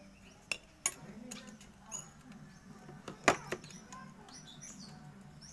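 Hand tools clicking and clinking against the rocker-arm valve adjusters of a Yamaha Xeon scooter engine while the valve clearance, found too tight, is being reset. There are a few sharp metal clicks, the loudest about three seconds in, with birds chirping faintly in the background.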